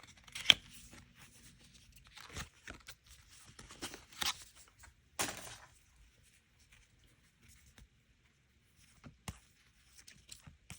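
Plastic wrapper of a mini photocard pack being torn open and crinkled. There is a sharp click about half a second in, then several short rips over the next few seconds, followed by a few faint clicks.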